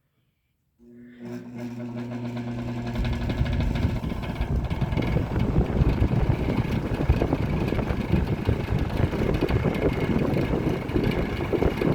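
Toastmaster 5337 box fan starting on its high setting: the motor hum comes in about a second in, and the rush of air from the blades builds over the next few seconds, then runs steadily.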